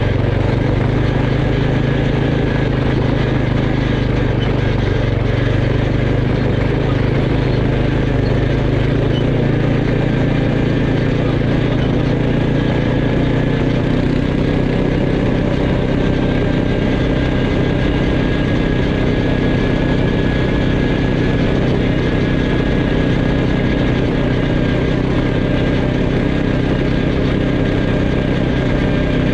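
Quad bike (ATV) engine running steadily at an even cruising pace on a dirt track.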